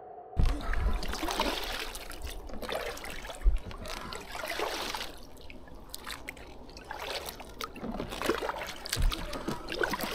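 Kayak paddling: paddle blades dipping and water splashing and dribbling off them, swelling in a stroke rhythm of roughly one every two seconds, with a few dull knocks.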